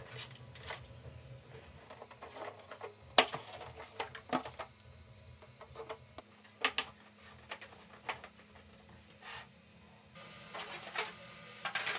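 Scattered sharp clicks and taps of small screws and 3D-printed plastic parts being handled and fitted at a workbench, spaced irregularly, the loudest a little after three seconds in.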